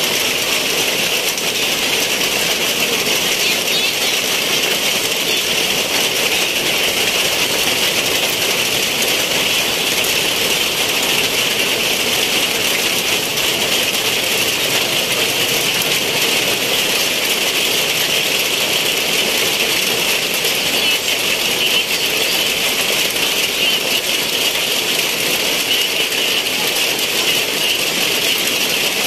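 Heavy rain pouring down, a dense, steady hiss of drops without a break.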